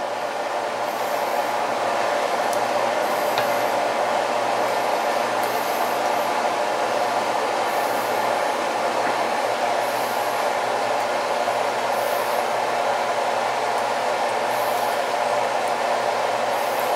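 Steady blowing noise of a fan or blower running, building a little over the first couple of seconds and then holding level.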